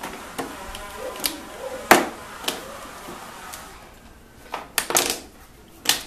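Irregular plastic clicks and knocks from a wiring harness and its connectors being handled and pushed against the golf cart's plastic body. The loudest knock comes about two seconds in, with a quick run of clicks near the end.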